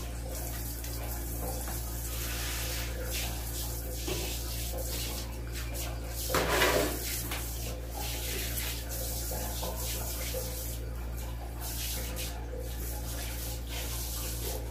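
Water running and splashing as a toilet bowl is washed and scrubbed, over a steady low hum. It swells briefly about six and a half seconds in.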